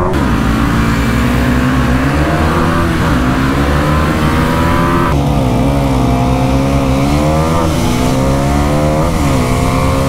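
Motorcycle engine at full throttle in a drag race, climbing in pitch and dropping back at each upshift, with a clear shift about five seconds in, over steady wind rush.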